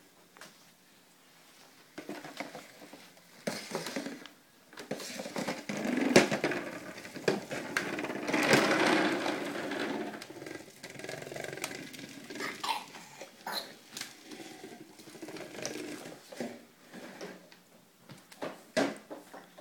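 Hard plastic wheels of a toddler's ride-on bike rolling and rattling over a wooden floor, an uneven rumble with sharp knocks that swells and fades as the bike moves, loudest in the middle.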